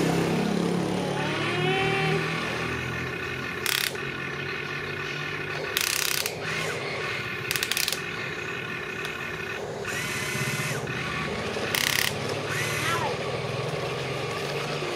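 Electric motors and gears of radio-controlled construction models whining steadily, with a few brief rattles, and voices faintly in the background.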